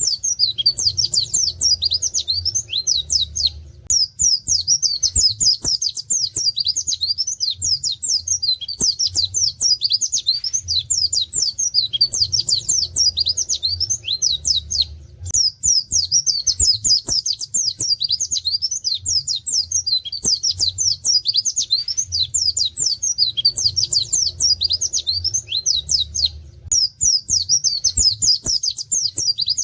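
White-eye (pleci) singing a rapid, high twittering song with canary-like 'wit wit' notes, in long unbroken runs with brief pauses about four, fifteen and twenty-six seconds in.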